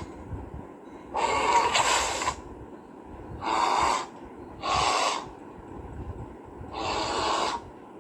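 Bear growling in four rough, breathy bursts, each about half a second to a second long, with pauses between them.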